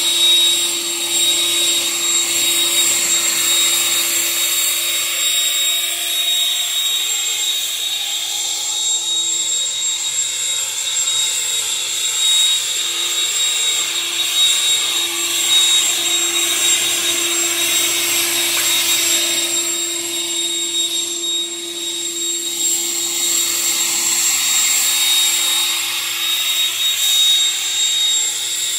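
Harbor Freight Bauer leaf blower running continuously: a steady high whine over a rush of air, the level swelling and dipping slightly as it is swept across the leaves.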